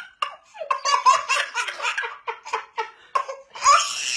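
Baby laughing hysterically in a quick run of short bursts, with a louder, higher outburst near the end.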